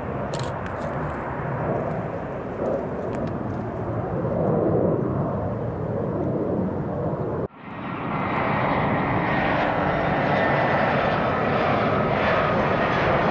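Airbus A320-family jet airliner landing, its engines a steady rushing noise as it touches down. About halfway through the sound cuts sharply, then a second A320 on final approach is heard, louder, with a faint steady whine over the engine noise.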